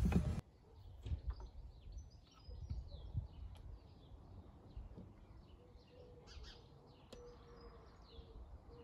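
Faint birds chirping in short, scattered calls over a low background rumble, with a faint steady tone joining about halfway through.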